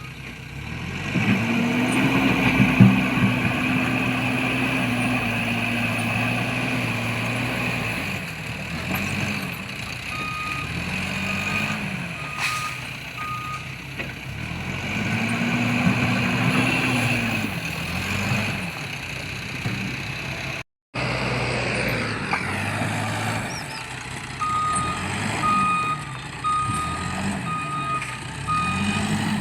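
Case 770 backhoe loader's diesel engine revving up and falling back again and again as the machine works, with a reversing alarm beeping in even pulses at times, most steadily near the end. A sharp knock comes about three seconds in.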